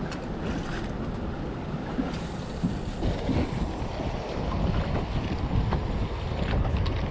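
Wind buffeting the microphone on an open boat at sea, with water sloshing around the hull; a brighter rush of hiss comes in about two seconds in.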